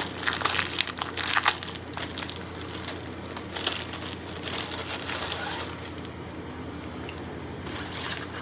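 Plastic wrapping around a folded fabric flag crinkling irregularly as it is handled, dying down after about five seconds.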